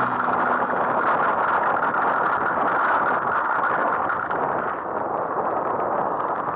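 Mountain bike rolling fast downhill over a dirt trail and onto loose gravel: a steady rush of tyre and rattle noise, picked up through a camera clamped to the seatpost.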